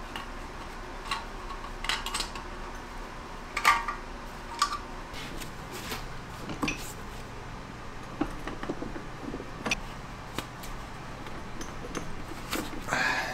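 Hand tools clinking and knocking on the metal column of a milling machine as it is taken apart: scattered sharp metallic clicks and taps, the loudest about four seconds in.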